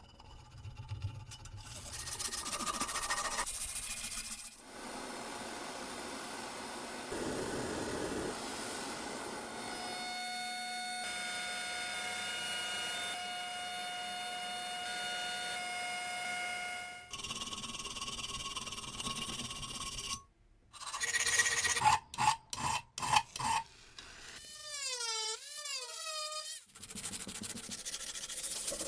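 Hand work on metal in a series of short cuts: rubbing and filing strokes, then a steady machine whine in the middle and a few short sharp bursts near the end, followed by a wavering whine.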